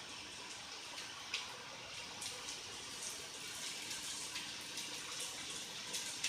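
Chicken kebabs frying in oil in a pan over a low flame: a faint, steady sizzle with small scattered crackles.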